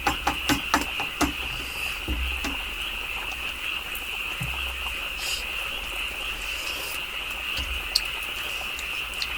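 A steady, high-pitched chorus of calling insects, with a few sharp clicks of spoons and bowls in about the first second and a half.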